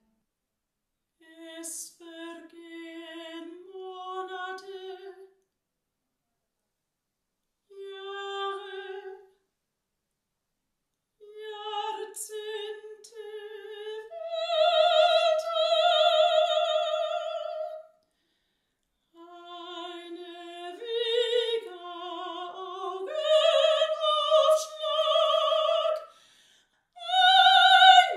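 A soprano voice singing in an operatic style with strong vibrato, in short phrases separated by silences; from about halfway the phrases grow longer and louder.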